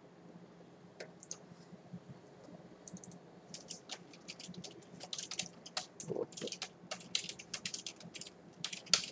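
Typing on a computer keyboard: a couple of single key clicks about a second in, then a quick run of keystrokes from about three seconds in, loudest near the end.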